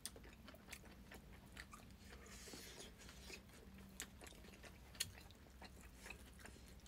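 Faint chewing and eating sounds, with a few scattered small clicks, over a low steady room hum.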